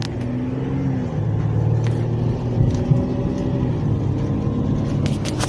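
Car engine and road noise heard while driving: a steady low hum whose pitch shifts slightly.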